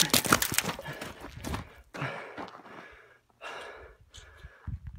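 A man breathing hard and gasping from exertion, several heavy breaths in a row, with scuffing noises through the first second and a half.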